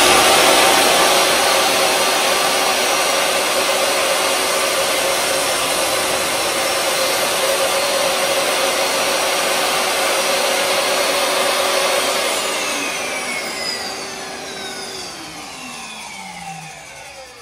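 DeWalt DWE745 10-inch table saw's universal motor running at full speed with no cut being made, then switched off about twelve seconds in, its whine falling steadily in pitch as the blade spins down.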